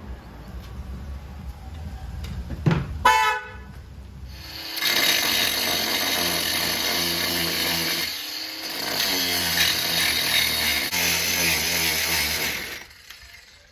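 Power tool cutting into the boat's old fibreglass and plywood transom. It runs at a steady pitch for about eight seconds, sags briefly partway through, then stops.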